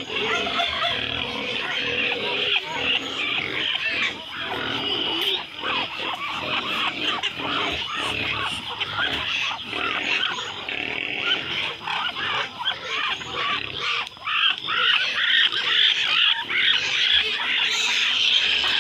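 Farmyard poultry (chickens, Muscovy ducks and a turkey) calling together in a dense, continuous chatter of short overlapping calls, a little louder near the end.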